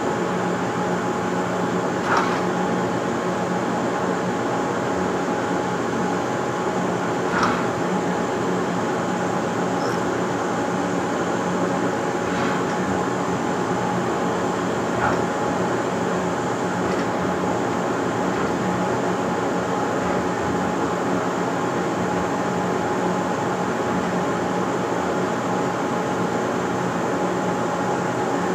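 CNC drawing machine running as it moves a fountain pen over paper: a steady mechanical hum from its motors with several constant tones, broken by an occasional sharp click.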